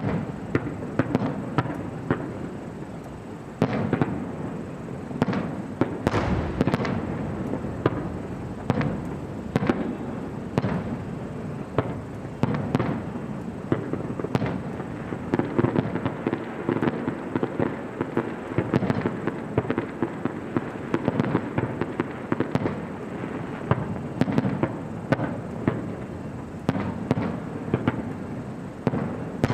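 Aerial fireworks display going off: a dense run of sharp bangs and crackling, several bursts a second, with a deeper boom about six seconds in.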